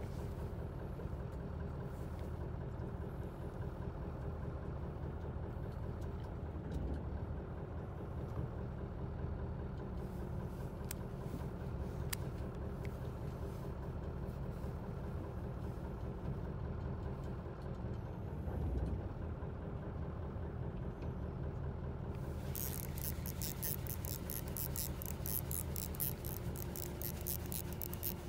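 Fishing boat's engine running steadily with a low hum. Near the end a fast, high ticking rattle starts over it.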